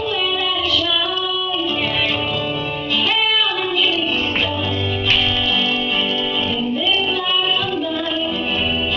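A girl singing into a microphone with acoustic guitar accompaniment, amplified live through a PA.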